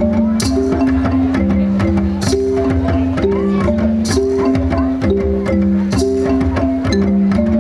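Upbeat music: a short riff of held notes repeats over a steady bass line, with a sharp percussive hit about every two seconds.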